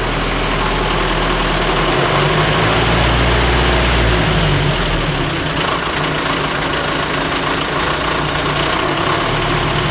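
D-245 four-cylinder diesel engine of a rotary snowblower attachment, running just after start-up while its speed is varied. It revs up about two seconds in, then eases back toward idle a couple of seconds later, with a high whine rising and falling along with it.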